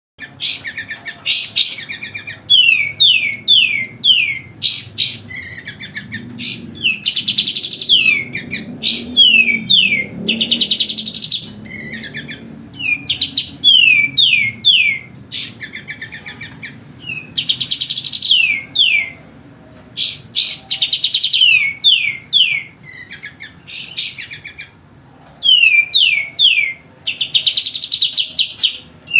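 Kapas tembak bulbul singing loudly and almost without pause. Runs of quick falling whistled notes alternate with fast, dense trills in repeated phrases.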